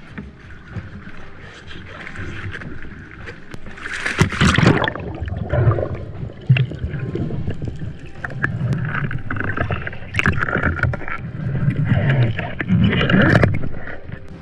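A diver slipping from a boat's side into the sea: a splash about four seconds in, then muffled underwater gurgling and sloshing around the camera as he goes down.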